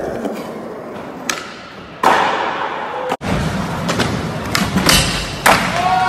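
Skateboard wheels rolling on a smooth concrete floor, with a sharp board impact about two seconds in. The sound drops out for an instant a little after three seconds, then comes back as louder rolling with a couple of sharp knocks.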